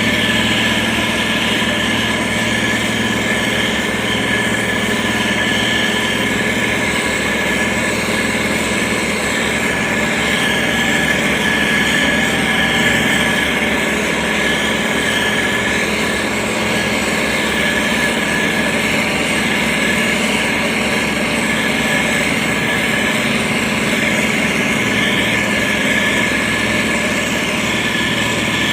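Heavy road-construction machine's engine running steadily under continuous load, with a constant whine over the engine note.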